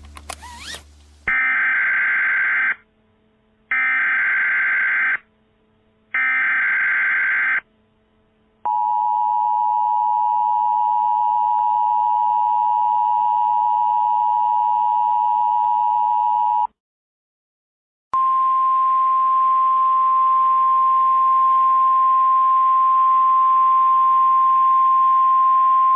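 Emergency Alert System alert tones: three short screechy bursts of digital header data, then the two-tone attention signal held for about eight seconds. After a short silence comes a single steady weather-radio attention tone with a hiss behind it.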